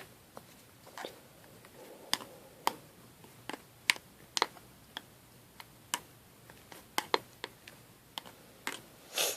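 Irregular light clicks and taps, about one or two a second, from hands handling modelling clay and small plastic containers.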